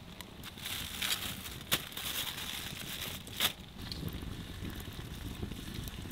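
Wood campfire crackling under a cooking grill, with two sharp pops, one under two seconds in and another about three and a half seconds in.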